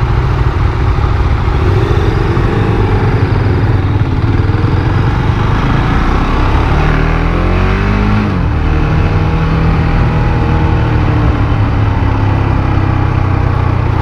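KTM 690 Duke's big single-cylinder LC4 engine running through an aftermarket Akrapovič exhaust that the rider believes still has its dB killer fitted, so it is not very loud. The revs climb under acceleration, drop suddenly at an upshift about eight seconds in, then hold steady while cruising.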